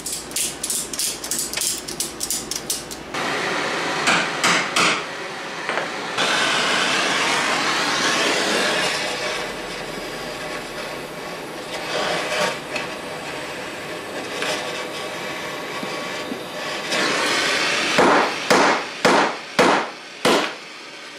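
Hammer peening the heated pin tips of a #60 roller-chain link: a quick run of light metal taps at first, a few harder blows, then half a dozen heavy blows about half a second apart near the end. A steady hiss fills the middle stretch.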